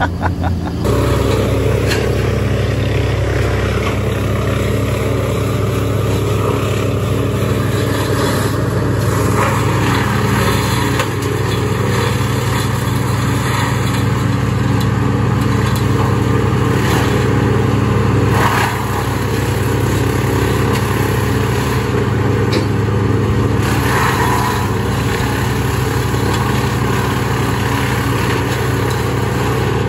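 Heavy land-clearing machine's diesel engine running steadily under load, with small shifts in level about a second in and again about two-thirds of the way through.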